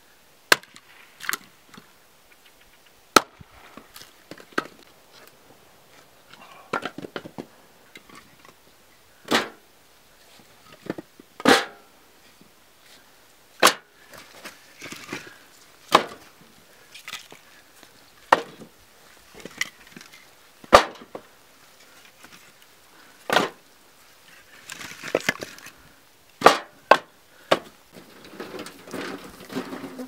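Firewood being split and handled: sharp wooden knocks of an axe splitting logs and of split pieces knocking together as they are loaded into a metal wheelbarrow, one every two seconds or so.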